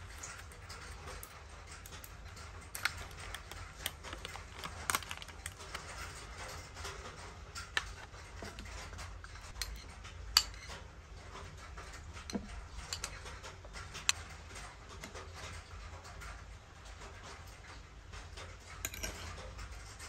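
Metal spoon clinking and scraping against a ceramic bowl and a plastic yogurt cup while scooping yogurt, with a handful of sharp separate clinks over a low steady hum.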